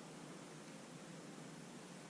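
Steady, faint hiss of room tone with no distinct events.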